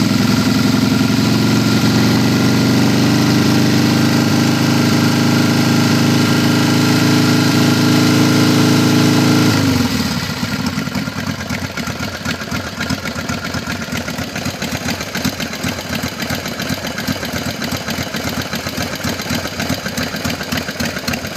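Harley-Davidson Sportster 1200 V-twin engine held at raised revs, then dropping back to a lumpy idle about ten seconds in. It carries a banging noise that sounds like it is in the front cylinder, which the mechanic takes for lifters going bad.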